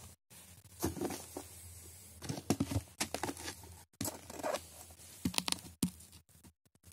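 Footsteps of high-heeled boots in snow close by: a run of uneven crunching steps.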